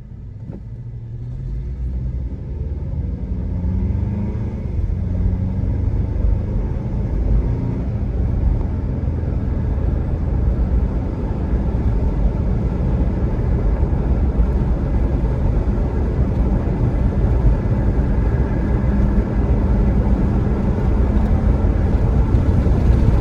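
A car driving along, its engine and road rumble building as it speeds up over the first few seconds and then holding a steady run.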